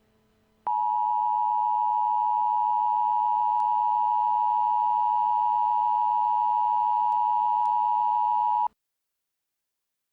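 Emergency Alert System attention signal: a steady, unbroken alert tone just under 1 kHz, starting sharply under a second in and cutting off about eight seconds later. It signals that an emergency announcement, here a severe thunderstorm warning, is about to follow.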